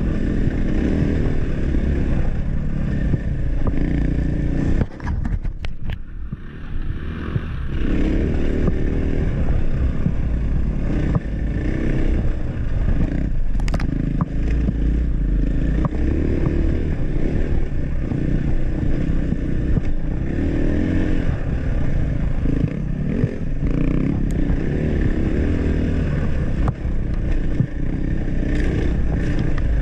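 KTM 500 EXC-F single-cylinder four-stroke dirt bike engine running under throttle on a rough trail, with rattling and scraping from the bike over the ground. About five seconds in the engine briefly eases off and drops in level, then picks up again.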